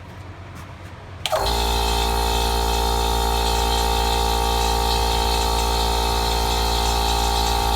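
Electric air compressor switched on about a second in, starting with a click, then running loud and steady with a strong hum until it cuts off just before the end.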